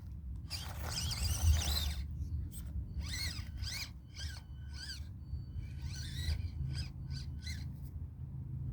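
Small birds chirping: many short high calls in quick runs, over a low steady rumble.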